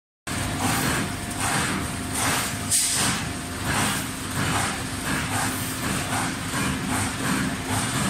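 Cable tray roll forming machine running, perforated steel strip feeding through its forming rollers: a steady mechanical hum with a rhythmic pulsing about every three-quarters of a second, and one brief louder burst near three seconds in.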